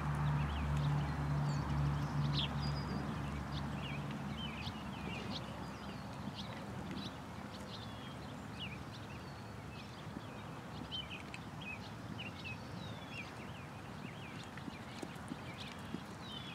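Horse trotting on a sand arena footing, with birds chirping throughout. A low steady drone is heard in the first few seconds and fades away.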